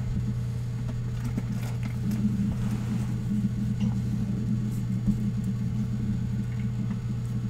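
A steady low hum runs throughout, with a few faint taps and rustles of trading cards being handled and set on small wooden easel stands.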